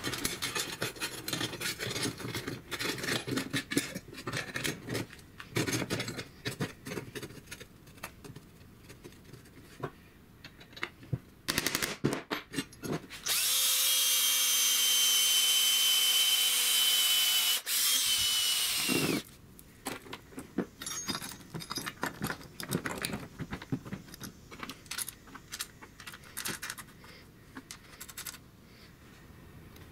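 Power drill with a twist bit boring through a welded steel sheet-metal guard, running steadily for about six seconds with a high whine that drops in pitch as it stops. Before and after, clinks and knocks of metal parts being handled.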